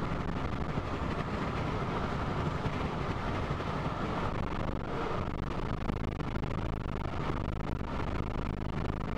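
A car driving along a road, a steady rumble of engine and tyre noise heard from inside the moving vehicle.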